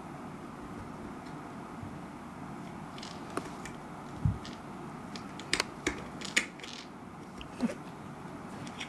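A cat batting a small, hard dried persimmon seed on a wooden floor: scattered sharp clicks and taps, with a soft thump about four seconds in and a quick run of clicks a little past halfway.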